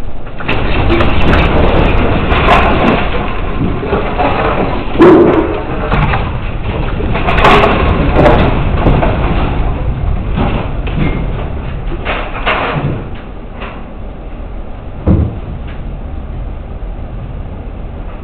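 A building shaking in an earthquake: a continuous rumble with doors, sliding panels and fittings rattling and knocking. The noise swells about half a second in, peaks with sharp bangs around five and seven seconds in, and dies down after about thirteen seconds, with one more knock near the end.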